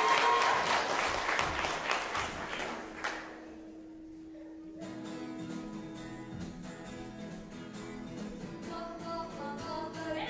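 Audience applause fades out over the first few seconds. About five seconds in, a guitar starts strumming a steady rhythm, the accompaniment for the kapa haka group's next song.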